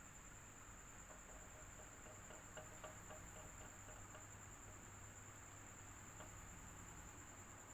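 Electric fan running faintly and steadily, with a constant high-pitched whine over a low hum. A few faint ticks come between about two and four seconds in.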